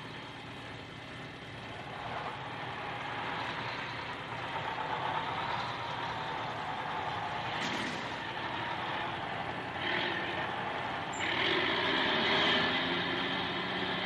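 Steady background noise of city traffic and construction machinery, a dense mixed engine-and-hiss ambience. It grows slowly louder and steps up again about ten seconds in.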